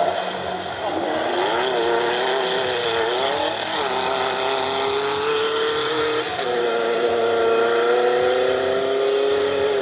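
VW-powered sand-rail buggy engine revving hard on a dirt course, its pitch rising and falling several times, then climbing about six seconds in and holding high.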